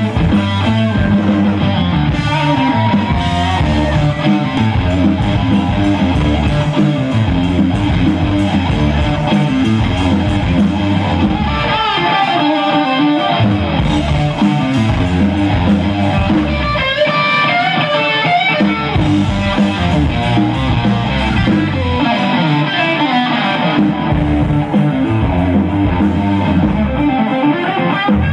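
Live rock band playing a blues-rock instrumental: electric guitar and bass guitar over a Ludwig drum kit, loud and continuous.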